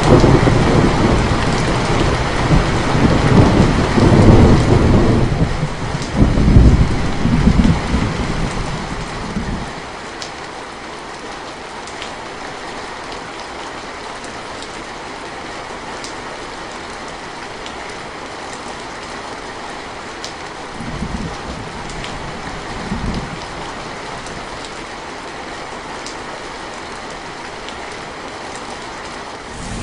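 Steady rain falling, with a long roll of thunder for the first ten seconds or so, then two short, fainter rumbles of thunder later on.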